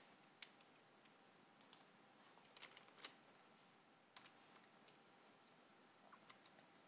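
Near silence with faint, scattered clicks from a computer mouse and keyboard, about a dozen spread unevenly over the stretch.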